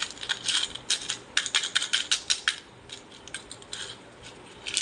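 Quick light clinks and taps of small pieces and fingers against a small metal bowl, as play-kitchen 'rice' is stirred and dropped in. The clinks come thick and fast for about two and a half seconds, then thin out to scattered taps.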